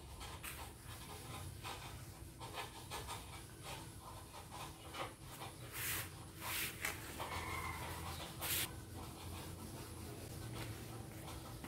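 Cloth rustling and brushing as a hand smooths and straightens printed fabric sheets, in short irregular strokes with a few louder swishes past the middle.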